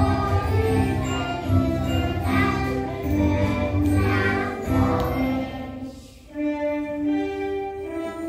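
A group of young children singing a song together over instrumental musical accompaniment. About six seconds in, the voices drop away and the accompaniment carries on alone.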